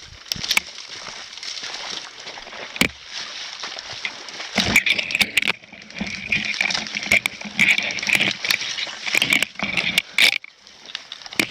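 Rustling and crunching through woodland brush, with runs of sharp clicks in the middle and again near the end.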